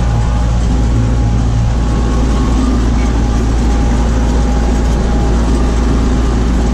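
Tractor engine running steadily under load with a deep, constant drone, powering a stalk mulcher through sunflower stalks.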